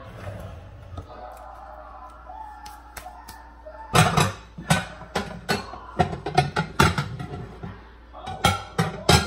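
A run of sharp knocks and clatters from things being handled close by, starting about four seconds in. Faint TV talk and music sound underneath.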